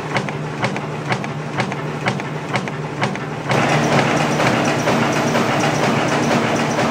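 Kohmann F 1000 window-patching machine running a punching and scoring production job, with a regular clack about twice a second. About halfway through, the sound gets louder and denser, the machine's steady running noise now covering the strokes.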